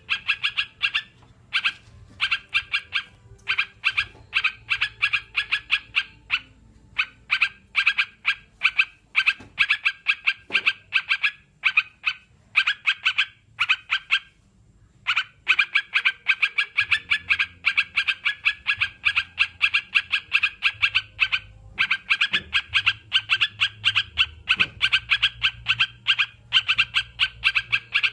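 Crucukan (yellow-vented bulbul) chattering: fast runs of short, repeated notes, several a second, in long phrases with a few brief pauses.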